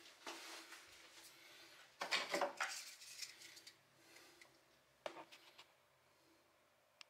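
Short plastic pipe offcuts and a metal can being picked up off the top of a water heater, clattering and rubbing together. The busiest handling comes about two seconds in, with lighter knocks near the start and again about five seconds in.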